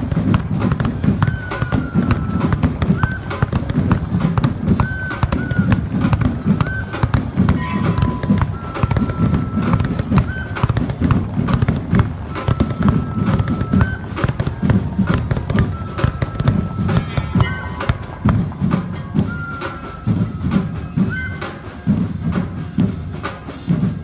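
Steam engine whistles sounding in many repeated short blasts, some bending in pitch as they start or stop, over a dense low rumble and clatter.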